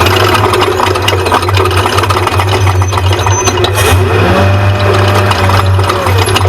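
Off-road race truck's engine running hard under a steady low drone, with rattles and knocks from the truck over rough ground. About four seconds in, the engine note climbs, holds for a moment, then drops back.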